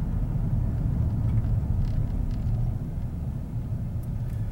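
A car's engine and tyre noise heard from inside the cabin: a steady low rumble as the car rolls along.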